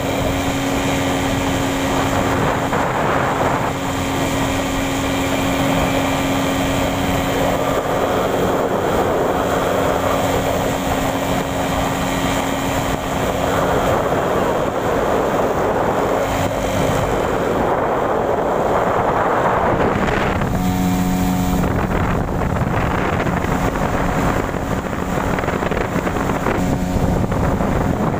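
Small boat's engine running steadily under way, with the rush of water from the wake and wind on the microphone; the engine note drops lower about twenty seconds in.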